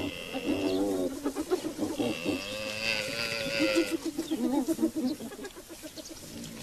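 Spotted hyenas calling as a pack, a run of overlapping excited giggling and yelping calls that waver and stutter in pitch.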